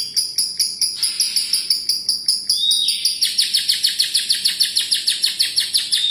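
Lovebird giving its long, rapid 'ngekek' chattering trill from about three seconds in, after a shorter harsh call about a second in. Under it runs a steady high ticking, about four times a second.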